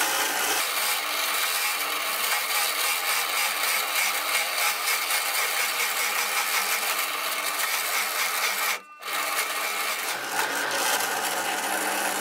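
Drill press running a hole saw that cuts steadily into a wooden block. The sound breaks off briefly about nine seconds in, then continues.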